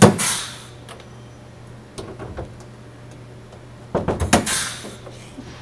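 Pneumatic rivet gun setting two pop rivets through a plastic waste tank into the side panel, about four seconds apart. Each rivet gives a sharp snap as the mandrel breaks, then a short hiss of exhaust air that fades. A few light clicks come in between.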